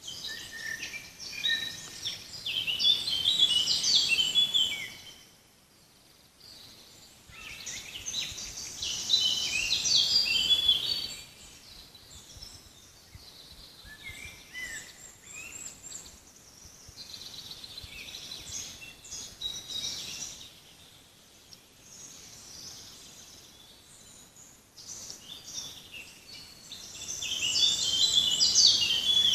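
Wild songbirds singing in a forest: a loud, rapid, high-pitched song phrase of a few seconds comes three times, with softer chirps and calls from other birds in between.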